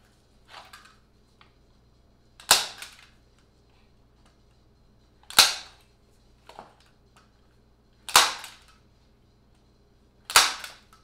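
Manual staple gun firing staples into plywood, driving them along the epoxied scarf joint to hold it while the glue cures: four sharp snaps about every two to three seconds, with fainter clicks between them.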